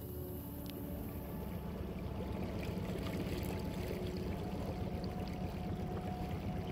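A boat's motor running steadily with water noise, slowly growing louder.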